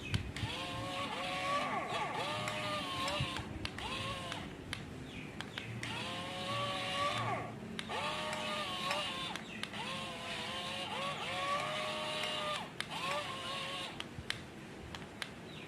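Excavator hydraulics whining in repeated bouts, each lasting from under a second to a few seconds, the pitch gliding up as each movement starts and down as it ends, over the steady running of the machine.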